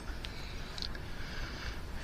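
Quiet room tone with a faint click about a quarter-second in and another short, faint tick a little before one second in.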